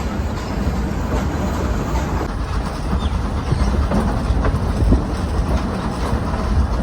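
Nilgiri Mountain Railway train carriage running on the mountain track: a steady low rumble with wheels clattering and clicking over the rails. The sound cuts off suddenly at the end.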